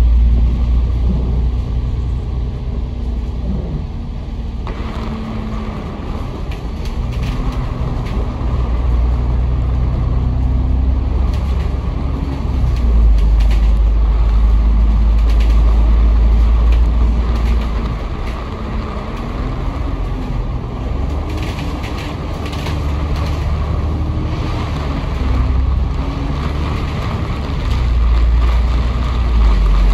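Diesel bus engine and drivetrain heard from inside the passenger cabin, with a deep rumble. Its tone rises and falls several times as the bus speeds up and slows down in traffic.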